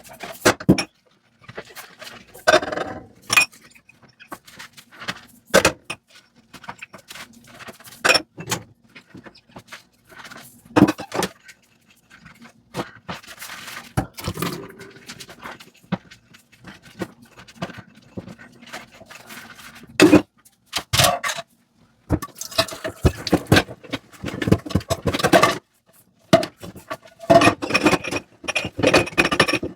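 Dishes, glassware and cutlery clinking, knocking and scraping as they are washed by hand, in irregular single knocks with busier stretches of clatter in the last third.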